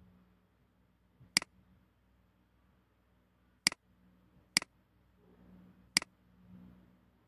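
Computer mouse clicking four times at uneven intervals, sharp single clicks over a faint low hum.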